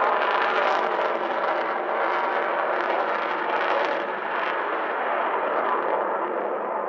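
Jet noise from the Avro Vulcan XH558's Rolls-Royce Olympus turbojets in flight. It is a loud, steady rushing sound that fades slowly towards the end.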